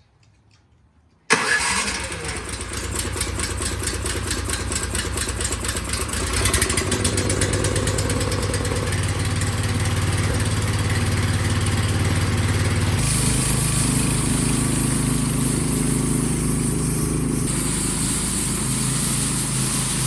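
Small gasoline engine of a Gravely power brush comes on suddenly about a second in and runs steadily, now running well after its carburetor was cleaned. Its sound changes twice, about a third and about two-thirds of the way through.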